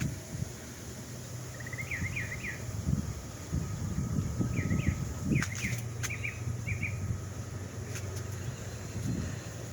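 A small bird chirping in two quick runs of high, sweeping notes a few seconds apart, over a steady low hum and low rumbling.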